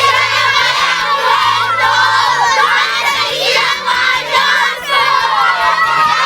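Many children's voices shouting and singing together over music with a stepping bass line.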